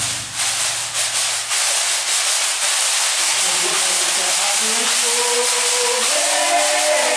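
Congado rattles, the flat metal patangome among them, shaken in a steady hissing rush once the drums fall silent after a few last strokes. Voices begin to sing faintly about four seconds in.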